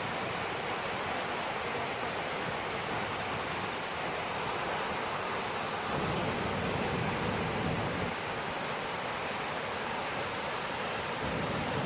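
Steady rushing road and wind noise inside a moving vehicle's cabin, with a deeper rumble swelling for a couple of seconds about halfway through and again near the end.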